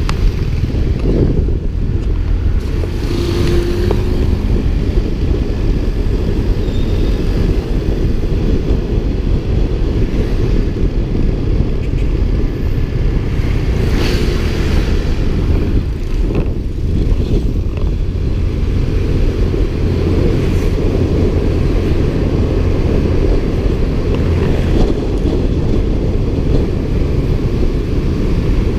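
Steady wind rush on the microphone of a moving motor scooter, with the scooter's small engine and passing motorcycles and cars in city traffic under it.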